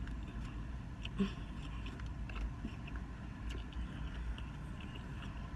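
Close-miked chewing with scattered soft mouth clicks and smacks. There is one brief low vocal sound about a second in.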